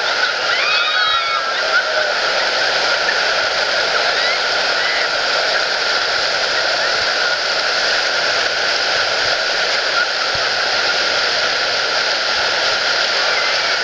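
Rushing whitewater of river rapids, a steady loud churning hiss.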